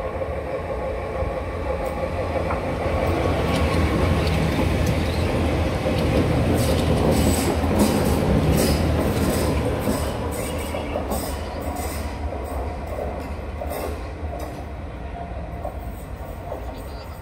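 Athens Metro Line 1 electric train approaching and passing close by, growing louder to a peak around the middle and then fading as it moves off. Its wheels click over the rail joints as the cars go past.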